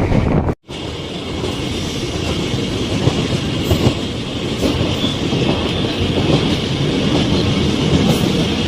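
Passenger train running along the line, a steady rumble of wheels on rails with scattered clicks. The sound drops out completely for a moment about half a second in, at an edit cut.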